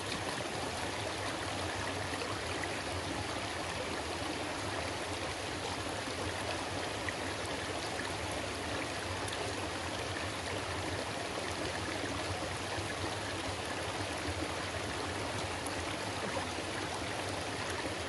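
Steady rush of water pouring over a concrete weir into a pool and running among the rocks of a mountain stream.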